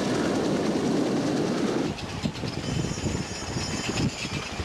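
Racing powerboat engines running loud and steady. About two seconds in the sound changes abruptly to a rougher, uneven pulsing.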